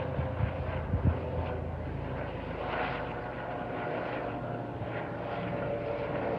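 Eurocopter EC135 twin-engine helicopter flying overhead: a steady drone of its turbines and rotors with faint steady whining tones, swelling slightly midway.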